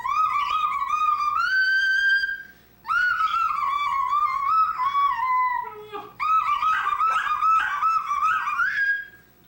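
A person singing 'la la la' in a very high, wavering voice, in three phrases with short breaks about three and six seconds in.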